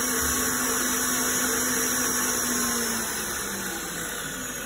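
Kenwood stand mixer whisking eggs and sugar in a stainless steel bowl with a balloon whisk, its motor running with a steady hum. About three seconds in the hum drops in pitch and gets quieter as the mixer's speed is turned down.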